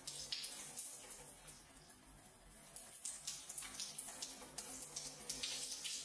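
Shower spray falling and splashing onto a wet hand in irregular gusts, briefly lighter about two seconds in.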